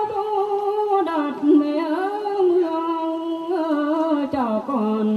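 A woman singing a Mường folk song into a microphone, in long held notes with a wavering vibrato. Her pitch steps down about a second in and again near the end.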